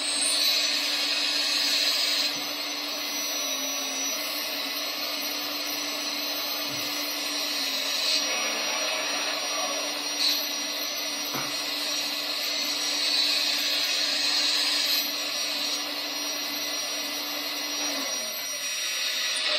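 Hydraulic pump of a 1:14.5 scale Metalhobi Hidromek H4 500 RC excavator running with a steady whine. It grows louder for a couple of seconds at a time as the boom and demolition crusher head move, with a couple of faint knocks in between.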